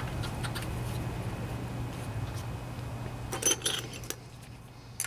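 Light metallic clinks and clicks of small metal parts and hand tools being handled during reassembly, with a louder cluster of clinks a little past halfway. A steady low hum runs underneath and drops away near the end.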